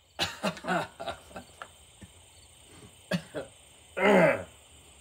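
A man coughing: several short coughs in the first second, a couple more around three seconds in, then a longer, louder cough about four seconds in. He is choking on black-powder smoke from the muzzleloader shot that blew back into his face.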